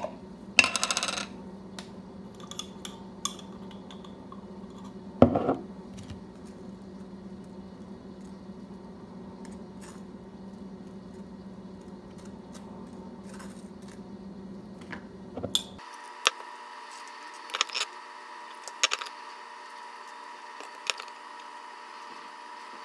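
Sparse light clinks and taps of cutlery against dishes while pesto is spread on toast, with one louder knock about five seconds in, over a steady low hum.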